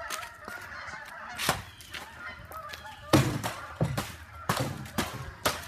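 A metal pool pole jabbed down hard at the ground, giving about six sharp knocks, the loudest about three seconds in. Through the first two seconds, a chorus of pitched animal calls sounds in the background.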